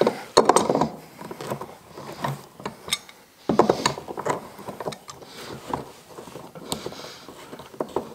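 Tongue-and-groove pliers clicking and scraping on a plastic hose-barb fitting as it is snugged into a PVC fitting: irregular clicks and rubbing, loudest about half a second in and again around three and a half seconds in.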